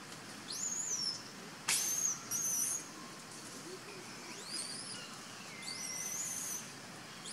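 A series of high, whistling animal calls, each sweeping up quickly and then held for about half a second to a second, with a short shrill screech about two seconds in.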